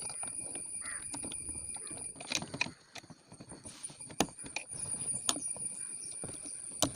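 Scattered clicks and knocks of small tools and metal parts being handled, with several sharp taps, over a faint steady high tone.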